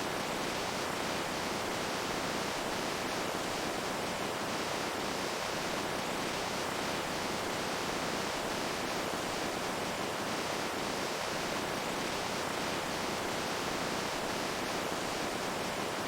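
Flowing water rushing steadily: an even, unbroken wash of sound with no pauses or changes.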